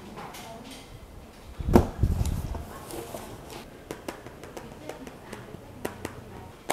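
Handling noise of a closed laptop being turned over in the hands: a dull thump a little under 2 s in, then light taps and clicks as fingers move over the lid.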